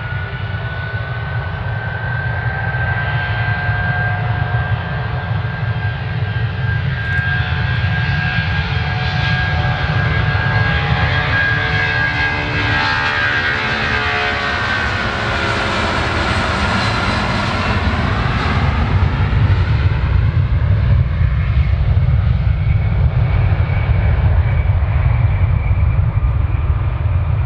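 Jet airliner passing close by: a high engine whine that falls in pitch as it goes past, over a steady low rumble, the noise swelling to its loudest in the second half.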